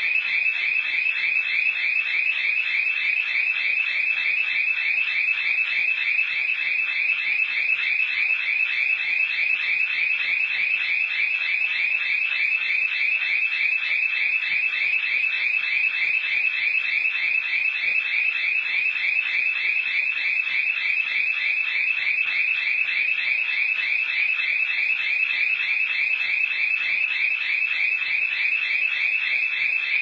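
Burglar alarm sounder going off continuously with a loud, high, rapidly warbling tone. It is a false alarm, which the owner puts down to heat from the wall heater's ignition flame tripping the motion sensors.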